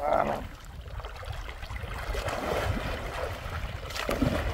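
Shallow sea water splashing and sloshing as a man swims breaststroke through small waves, with a low rumble of wind on the microphone.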